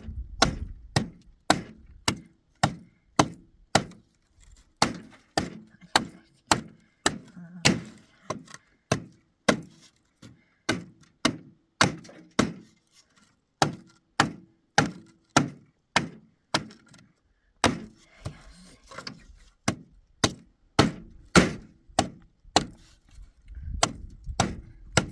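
Steady hammering on wood, nearly two sharp blows a second, some with a short ring, pausing briefly a few times.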